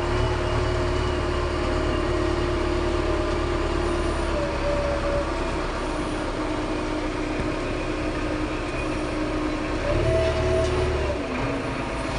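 Steady running rumble of a slow-moving train heard from inside the carriage, with a hum that holds steady and then shifts in pitch near the end.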